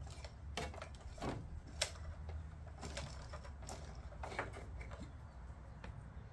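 Scattered light clicks and knocks of hands working at the oil filter on a riding mower's Kohler engine, over a steady low hum.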